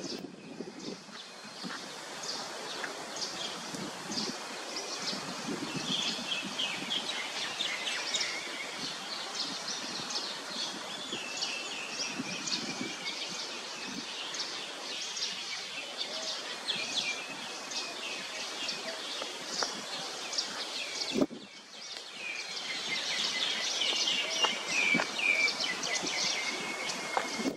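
Outdoor tree-canopy ambience: many short, high bird chirps over a steady background hiss, with leaves and branches rustling. The sound cuts off abruptly for a moment partway through.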